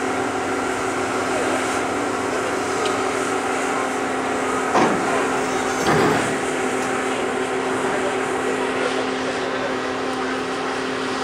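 Steady drone of heavy dockside machinery, with several constant hum tones over a rumbling noise. Two brief louder sounds come about five and six seconds in.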